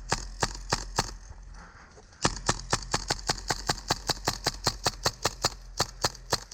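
Airsoft gun firing a steady string of rapid shots, about four a second, then pausing briefly about two seconds in before firing faster, about six shots a second.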